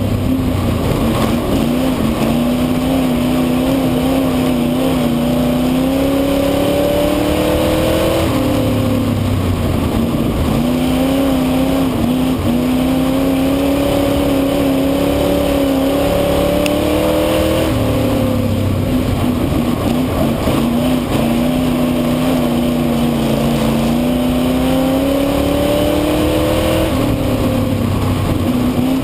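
Onboard sound of a speedway saloon car's V8 engine racing on a dirt oval: it holds high revs for several seconds, drops sharply off the throttle about every nine seconds as the car enters a turn, then climbs again, lap after lap.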